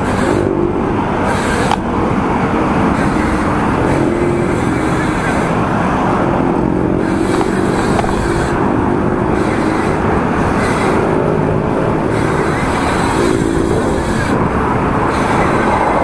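Loud, steady road and traffic noise heard while riding a bicycle along a city street, with motor vehicle engines running through it.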